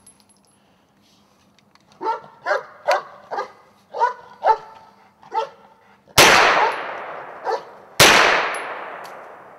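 A dog barks about eight times in quick succession. Then a scoped rifle fires two loud shots about two seconds apart, each with a long echoing tail, and a third shot comes right at the end.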